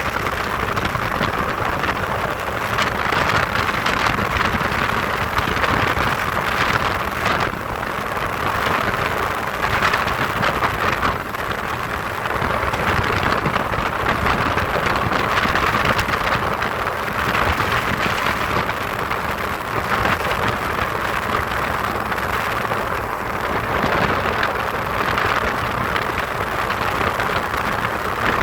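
Ultralight aircraft in flight in strong wind: a steady rush of engine and airflow noise on the microphone, swelling and easing every few seconds.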